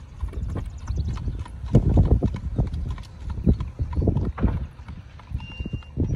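Ridden horse's hooves clip-clopping on a paved path as it moves along at a brisk gait, over a low rumble.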